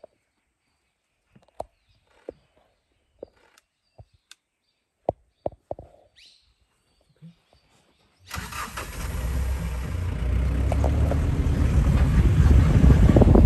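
A few scattered light clicks and knocks, then about eight seconds in a vehicle engine starts suddenly and runs with a heavy low rumble, growing louder.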